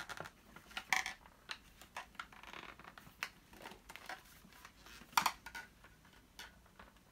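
Plastic clicks, knocks and rattles from the clear dirt bin and cyclone assembly of a Dyson DC07 vacuum being handled and worked at, the bin not releasing while its flap is shut. Sharper knocks come about a second in and about five seconds in.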